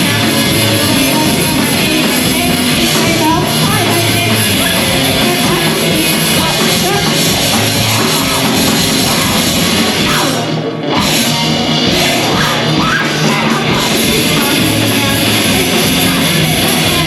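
A live rock band playing a loud, dense song, thinning out briefly about ten and a half seconds in.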